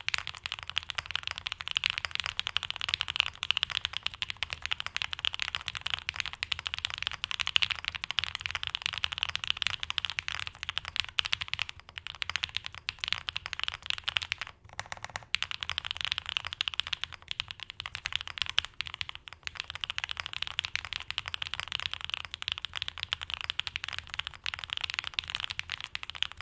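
Continuous typing on a Bear65 v2 Alice-layout mechanical keyboard with Red Jacket switches in an aluminium plate, case foam fitted and tape over the PCB flex cuts. Rapid key clacks, with one short pause about 15 seconds in.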